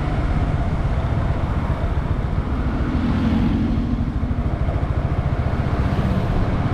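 Small motorcycle under way on the road: engine running steadily with heavy wind and road noise.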